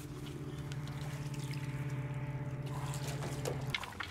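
Water lapping and splashing around people wading at a stony lake shore, over a steady low engine-like drone that stops abruptly about three-quarters of the way through. Then come a couple of sharp cracks of dry sticks being snapped by hand.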